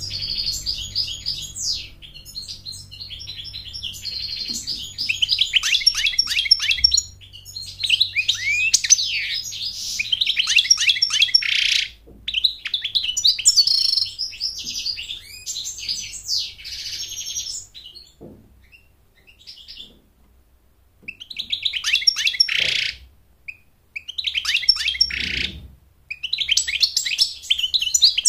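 European goldfinch singing: long runs of rapid, tinkling twitters and chirps, breaking into shorter bursts with brief pauses in the second half.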